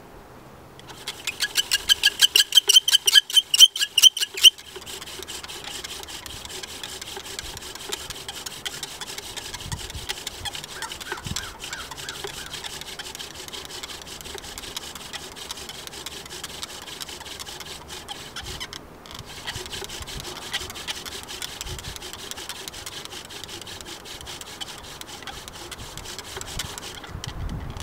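Bow drill fire-making: the crooked dry yucca flower-stalk spindle squeaks loudly in rapid pulses in the fireboard for the first few seconds, then settles into a steady dry grinding as the bow is sawn back and forth. There is a brief pause about two-thirds through, and the grinding stops just before the end.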